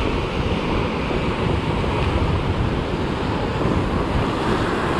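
Surf washing in around jetty rocks at the water's edge, a steady rush of broken waves and foam, with some low wind rumble on the microphone.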